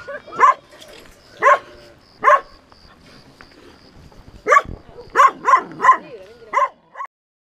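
A dog barking in short single barks, spaced out at first, then a quicker run of barks from about four and a half seconds in. The sound cuts off suddenly near the end.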